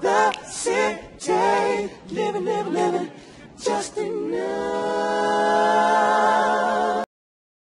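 A cappella sung outro jingle with no instruments: short phrases with wavering vibrato, then one long held note from about four seconds in that cuts off abruptly near the end.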